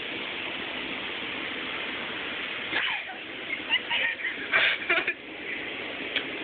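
Steady rushing hiss, then from about three seconds in, short high-pitched vocal squeals and shouts from young people come and go in quick bursts.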